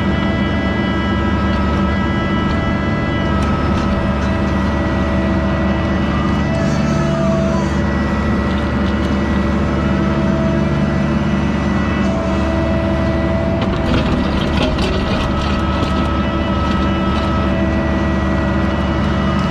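Diesel engine of compact earthmoving equipment working under load while digging dirt. A whining tone above the engine comes and goes several times, with scattered clicks and clanks.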